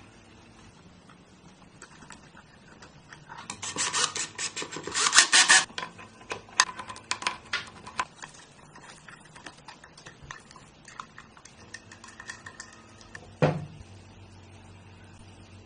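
Rapid clicking and clattering of small hard objects being handled, densest about four to six seconds in, then scattered single clicks and one sharp knock near the end.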